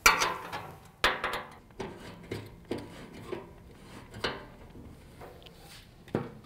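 Combination wrench working the door-mount bolts on a Can-Am X3's door frame, clinking against the bolt and frame. A string of irregular clicks and knocks, the first the loudest.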